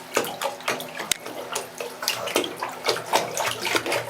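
A Pomeranian paddling in bathtub water, its legs making quick, irregular splashes.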